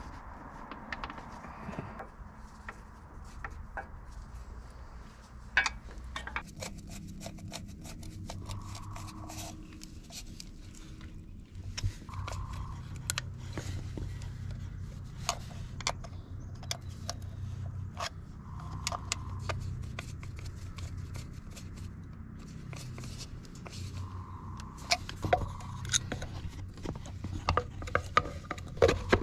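Metal hand tools and parts clinking and scraping in irregular, scattered clicks during hands-on repair of an old tractor. A low steady hum runs underneath and grows stronger about halfway through.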